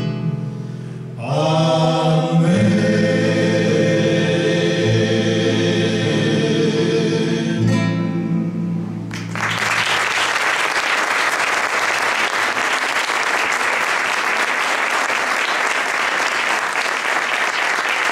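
A live song ends: a man's voice holds a long final note over the accompaniment, stopping about nine seconds in. The audience then applauds steadily.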